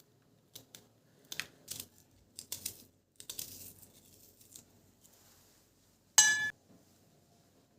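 Light handling clicks and rustles, then one loud, short, ringing clink of a hard object being set down or knocked, about six seconds in.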